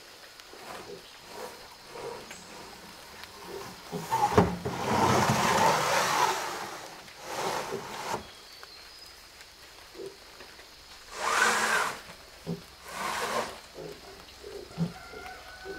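Corrugated cement roofing sheets knocking and scraping as they are slid off a stack and onto an earth bank: a sharp knock about four seconds in, then a couple of seconds of scraping, and more short scrapes later on.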